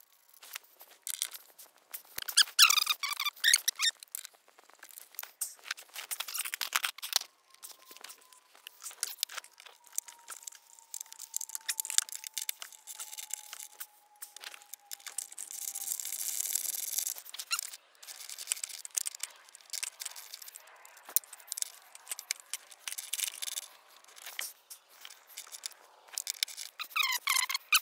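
Hand socket ratchet and other metal tools clicking and clinking in irregular short bursts as bolts are worked by hand.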